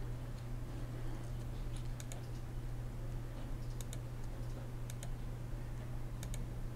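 Light, sharp clicks at a computer while shapes are drawn, mostly in quick pairs about once a second, over a steady low hum.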